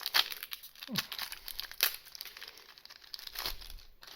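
Foil trading-card booster pack wrapper crinkling as it is handled, with many sharp crackles throughout.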